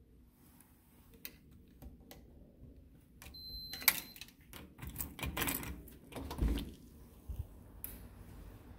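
Key and lever of an electronic door lock being worked: a few light clicks, then a beep lasting about a second ending in a sharp click, then the latch and lever rattling as the door is pushed open.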